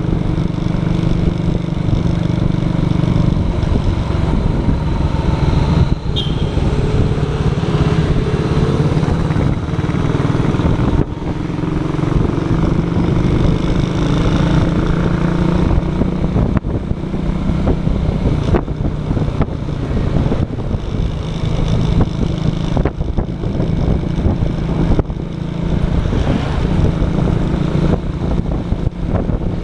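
Cruiser motorcycle's engine running steadily under way, its note rising and falling as the throttle changes.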